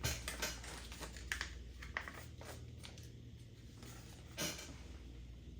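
Light clicks, taps and rustles of plastic toy packaging being handled, with one louder knock about four and a half seconds in.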